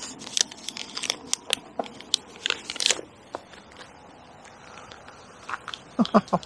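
Footsteps crunching on a gravel path close to the microphone, an uneven run of crisp clicks that thins out after about three seconds.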